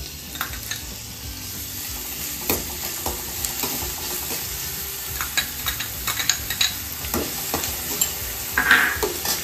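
Chopped onions sizzling as they fry in a hot non-stick kadai, stirred with a steel spoon that scrapes and taps the pan again and again. A louder stroke of the spoon comes near the end.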